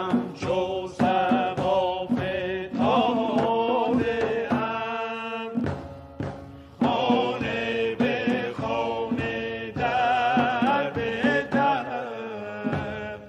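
Persian classical ensemble in dastgah Nava playing an instrumental passage between verses of a tasnif. Quick plucked-string notes from instruments such as tar, santur and barbat sound over a beat, and held wavering melody lines from bowed kamancheh or ney rise over them.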